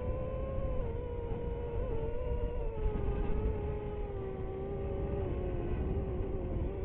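DJI FPV drone's motors and propellers whining steadily over a low wind rumble. The pitch sinks slowly as the throttle eases.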